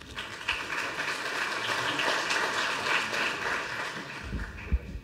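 Audience applauding in a large hall, fading out about four seconds in, followed by a few low thumps near the end.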